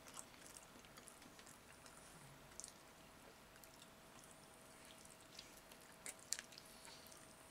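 Faint eating sounds of a man gnawing a fried chicken leg: quiet chewing and a few sharp mouth clicks and smacks, the clearest about two and a half and six seconds in.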